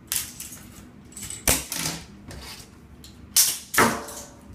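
Plastic clothes hangers clacking and scraping along a metal closet rod as they are pushed aside, in several sharp clattering bursts.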